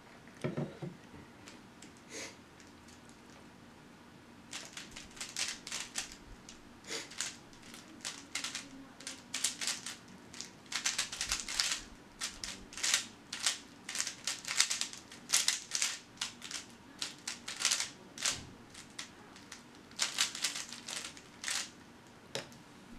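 A 3x3 speed cube being turned fast in the hands: flurries of rapid plastic clicking and clattering, coming in bursts with short pauses between. A short low sound about half a second in, before the turning starts.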